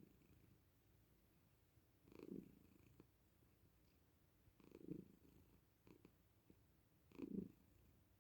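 Domestic cat purring softly. The purr swells into louder rumbles four times, about two and a half seconds apart.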